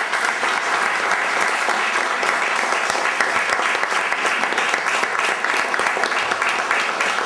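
An audience of people applauding, a steady patter of many hands clapping.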